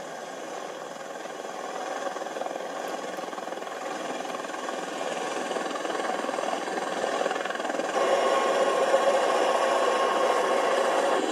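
V-22 Osprey tiltrotors running their engines and rotors on the flight line: a steady rushing drone that slowly grows louder, with a steadier hum joining about eight seconds in. It is heard through a TV set's speaker, thin with no deep bass.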